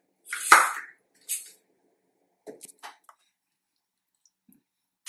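A bowl of thick ground coconut paste being tipped into an aluminium pressure cooker of cooked dal: a sharp knock of the bowl on the cooker about half a second in, a short scrape, then a few faint wet squelches and clicks as the paste slides in.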